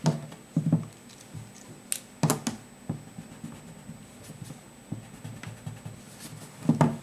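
A rubber eraser rubbing on drawing paper in short strokes, with a few sharp knocks of the hand and drawing tools against the desk.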